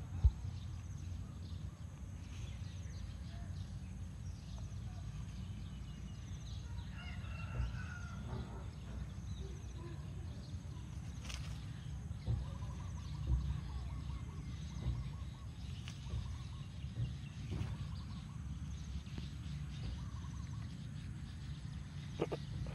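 Outdoor ambience: a steady low rumble with faint bird calls now and then. There is a single sharp click just after the start.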